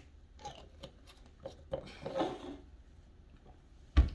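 Handling noises from a small vodka shooter bottle: a few light clicks and rustles as it is opened and drunk, then a sharp knock near the end, like the bottle being set down on a table.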